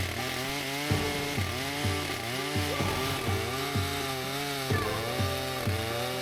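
Chainsaw mill with a 36-inch bar ripping a slab lengthwise through an oak log, the saw running steadily under load, with background music that has a steady beat.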